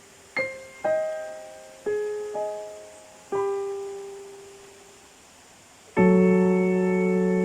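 Slow piano music: a few single notes struck one after another, each fading away, then a fuller, louder chord near the end.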